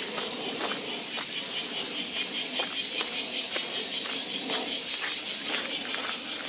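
Loud, steady chorus of cicadas, with faint footsteps on a gravel path about every half second underneath.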